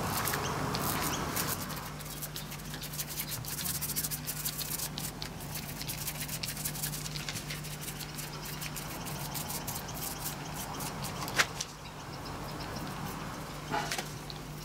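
Foam paint roller rolling wet two-part epoxy resin across a carbon fibre sheet: a rubbing sound full of fine crackles, with one sharp click about eleven seconds in, over a steady low hum.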